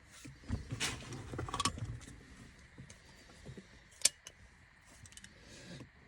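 Small hard objects rattling and clicking as they are handled, with a burst of clatter in the first two seconds and one sharp click about four seconds in.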